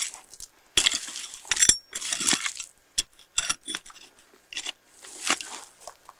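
A short-handled digging tool scraping and striking dry, stony ground in irregular strokes, with small stones clinking and grit scattering.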